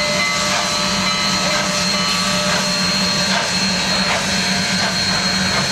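Union Pacific 844, a 4-8-4 Northern-type steam locomotive, moving slowly past with a loud, steady hiss of steam and a few steady whining tones over it.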